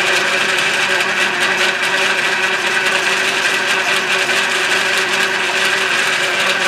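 Atlas horizontal milling machine cutting an aluminium block with a solid carbide end mill under feed, a loud, steady machine whine over a gritty cutting noise. It is laboring and noisy because the table is fighting an axis that was locked by mistake.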